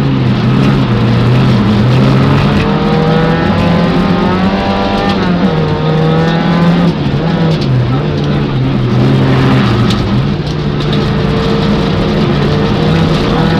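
Peugeot 205 rally car's engine heard from inside the cabin, revving hard: its pitch climbs and then drops back several times as the driver changes gear.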